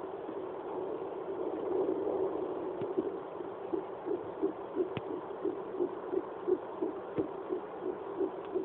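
Home fetal doppler picking up an 11-week fetal heartbeat through its speaker: a steady whooshing hiss, then from about three and a half seconds in a fast, even pulse of about three beats a second, with a few sharp clicks.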